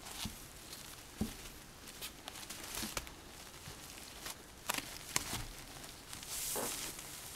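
Soft scattered rustling and light clicks of a kitten rolling and pawing on a crinkly plastic-backed puppy pad while wrestling a plush toy, with a longer rustle about six and a half seconds in.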